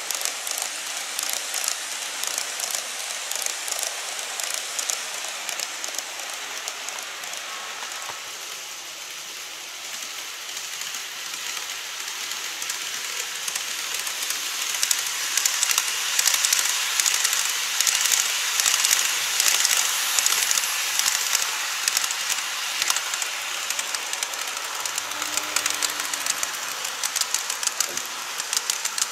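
Model trains running on sectional track: a continuous rattling hiss of small wheels ticking over the rail joints, growing louder about fifteen seconds in as a model 787-series electric train passes close, then easing off.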